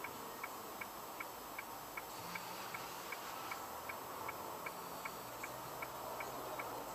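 Car's turn-signal indicator ticking steadily, a little under three clicks a second, over a low steady cabin hum while the car stands waiting to turn.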